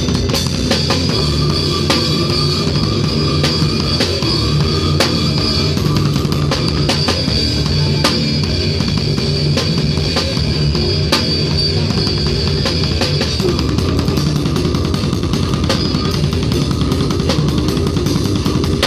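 Live metal band playing loud and fast: a drum kit with rapid hits and cymbals over electric guitars, picked up right beside the drums.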